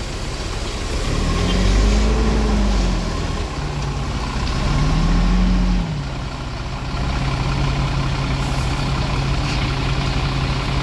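Heavy truck's diesel engine revving up and falling back twice, then settling about six seconds in to running at steady revs.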